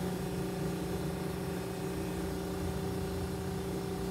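Small electric motor of a scale model boat, running off a power supply on a test run and spinning its propeller in open air: a steady, even hum.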